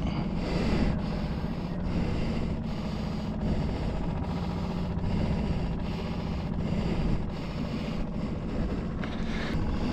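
A boat engine running steadily with a low hum, mixed with wind noise on the microphone and water.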